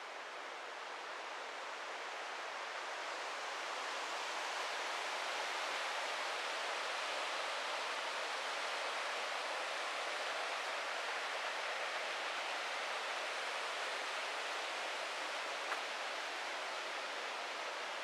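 Steady rush of a river and waterfall, growing louder over the first few seconds and then holding even, with one small click near the end.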